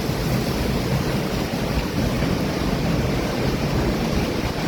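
Tornado winds blowing hard: a dense, steady rush with heavy wind buffeting on the microphone.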